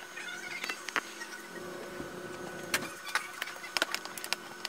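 Sharp clicks from an analog multimeter's rotary range switch being turned and its test probes handled, with a cluster of quick clicks near the end, over a faint steady hum.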